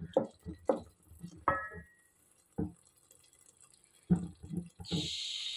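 Metal spoon stirring a thick vegetable curry in an aluminium pot: a series of short knocks and wet, sticky sounds against the pot. Near the end there is about a second of steady hiss.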